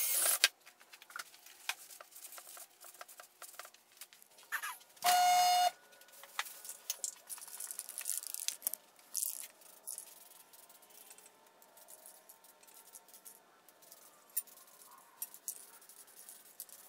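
A drill-driven wire cup brush scouring metal cuts off about half a second in. About five seconds in there is a brief loud tone with overtones. After that come light scattered clicks and rattles.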